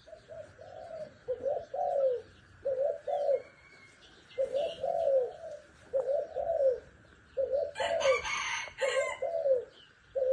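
A bird cooing repeatedly: short arching coos, mostly in twos and threes, about every second. A brief scratchy noise about eight seconds in.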